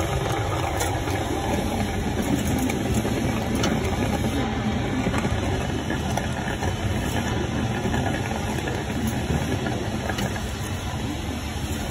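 An engine's steady low drone, running evenly, with a few faint clicks over it.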